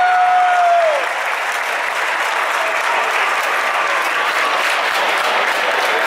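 Ballpark crowd applauding, a steady wash of noise; near the start a long held note rises above it and falls away about a second in.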